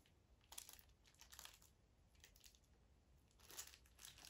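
Faint crinkling of plastic packaging bags being handled, in a few short rustles, louder near the end.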